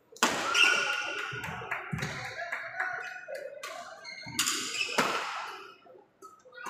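Badminton rally: rackets strike the shuttlecock in sharp cracks, about half a dozen over the few seconds, with shoes squeaking and feet thudding on the wooden court between shots.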